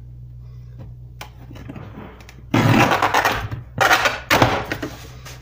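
Blade of an old guillotine paper cutter shearing through a sheet of circuit board (fiberboard): two loud cutting sounds, each under a second long and about a second apart, after a light click.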